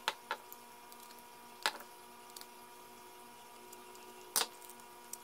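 A small Phillips screwdriver clicking against the pull-start screws on a Kyosho KE25 nitro engine as they are worked loose: a handful of sharp clicks, the loudest about a second and a half in and again past four seconds, over a faint steady tone.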